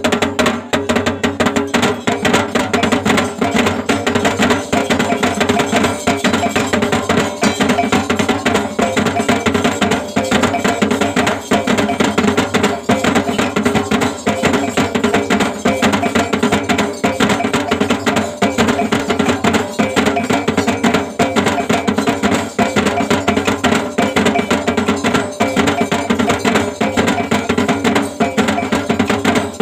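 Kelentangan, a Dayak row of small bossed kettle gongs, struck with wooden sticks in a fast, unbroken pattern, the struck gongs ringing on over each other.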